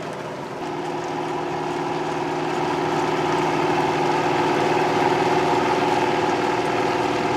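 Riecam RBM 300 sugar beet harvester working, its air-cooled Deutz V8 engine running steadily under load with lifting and cleaning machinery noise. It grows louder over the first few seconds.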